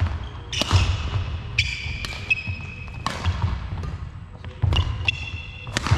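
Badminton singles rally: rackets striking the shuttlecock about five times, roughly a second or so apart, each hit echoing briefly. Between hits, court shoes squeak on the wooden floor and footsteps thud.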